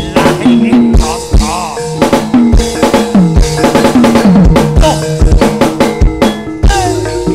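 Live gamelan accompaniment for a jaranan dance: drums beat a driving rhythm about twice a second, some strokes bending down in pitch, over ringing gong-chime tones.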